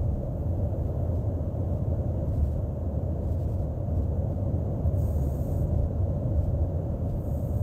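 Steady low rumble of engine and airflow noise inside a KC-135 tanker's boom operator compartment in flight. A faint high hiss comes in briefly twice in the second half.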